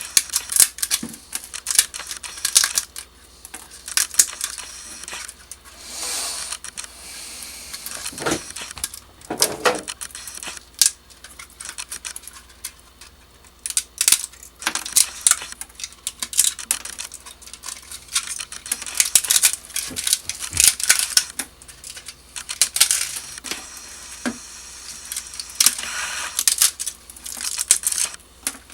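Support material being picked and snapped off a wood-filament 3D print: a dense, irregular run of small sharp clicks and cracks, broken by a few short scraping sounds.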